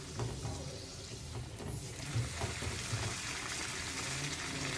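Hot oil sizzling steadily around a bhatura deep-frying in a kadhai, pressed under the oil with a slotted spoon; the sizzle grows a little stronger in the second half.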